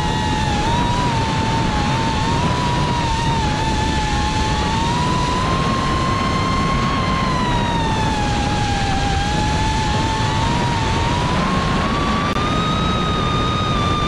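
QAV cinewhoop FPV drone in flight, heard through its onboard camera: the motors and ducted propellers whine steadily, the pitch sagging in the middle and climbing near the end with the throttle. A low rushing noise runs beneath the whine.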